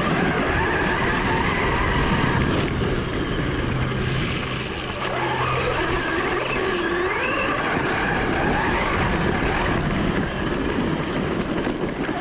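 ARRMA Talion 6S RC car's brushless motor whining, its pitch rising and falling as the throttle is worked, over a steady rush of noise from the tyres churning dirt.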